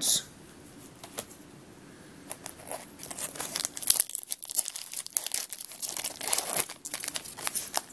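Foil wrapper of a Pokémon trading-card booster pack being torn open and crinkled by hand, the crackling starting about two seconds in after a few soft clicks and continuing in uneven bursts.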